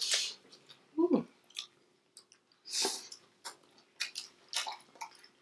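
Close-up chewing and mouth smacks of someone eating collard greens: scattered short clicks and smacks, with one louder burst near three seconds in.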